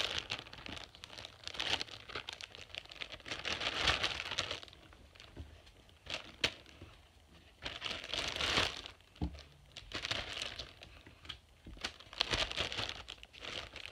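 Clear plastic Ziploc bag crinkling in repeated bursts as squishies are handled and stuffed into it, with a single sharp click about six and a half seconds in.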